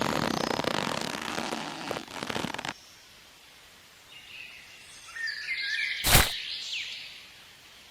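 A dense rushing, clattering noise that cuts off abruptly under three seconds in, then birds chirping, broken by one sharp crack about six seconds in.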